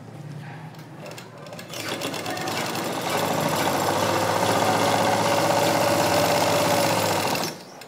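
Black belt-driven domestic sewing machine running, stitching through folded fabric layers. It starts about two seconds in, runs at an even speed and stops suddenly near the end.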